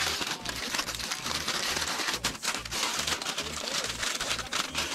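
Aluminium foil crinkling and crumpling as hands fold and crimp it into a packet, a busy run of sharp crackles.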